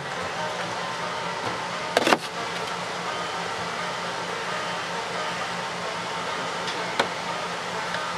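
Steady hum of a refrigerator with its door open, with a sharp knock about two seconds in and a lighter tap near seven seconds as things on the shelves are handled.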